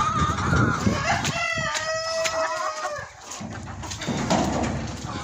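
A rooster crows once, a long call of nearly two seconds starting about a second in, with hens clucking around it.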